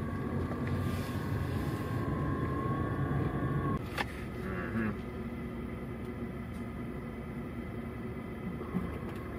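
Car cabin noise from a 2020 Hyundai Tucson driving off: a steady low engine and road rumble, louder for the first four seconds. A faint whine rises slightly, then stops about four seconds in with a sharp click, after which the rumble settles lower.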